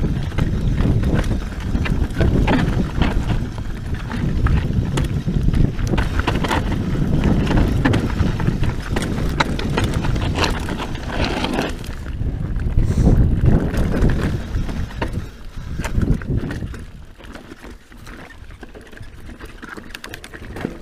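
Scott Genius full-suspension mountain bike riding down a rough rocky trail: tyres on loose rock with many sharp clicks and rattles of chain and frame over a low rumble. It gets quieter about sixteen seconds in.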